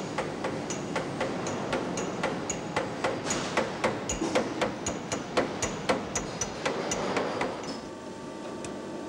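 Hand hammer blows on metal, a quick uneven series of about three ringing strikes a second, growing louder toward the middle. They stop about eight seconds in, leaving a steady machine hum.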